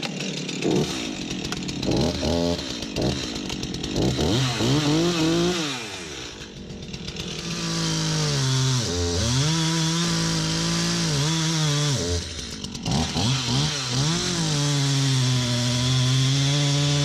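Two-stroke chainsaw blipped a few times, then held at full throttle through a cut, its engine note dipping and recovering a couple of times as the chain loads in the wood.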